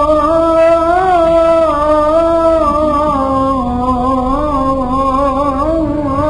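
Sufi inshad sung without accompaniment: a long melismatic line held on a vowel with no words, its pitch wavering slowly and sagging a little lower through the middle before rising again, with no break.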